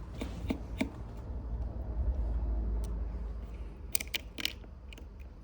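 Small clicks and taps of tools and tiny parts while an iPhone 6S is being taken apart for a screen replacement. There are a few light clicks in the first second and a quick cluster of sharper clicks about four seconds in, over a low rumble.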